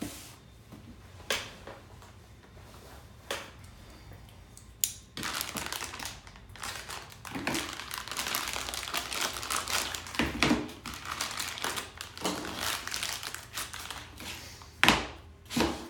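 A clear plastic bag crinkling as it is opened and handled to get the black metal mount brackets out, for several seconds from about five seconds in. There are a few light taps before it and two louder knocks near the end.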